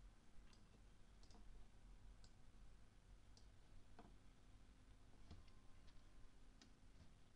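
Near silence: faint room tone with a low steady hum and about eight faint, sharp clicks at irregular intervals.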